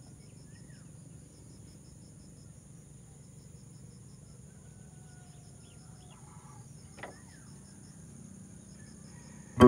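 Faint outdoor ambience: insects drone and chirp in a steady pulsing pattern, with a few faint bird calls and a single light tap about seven seconds in.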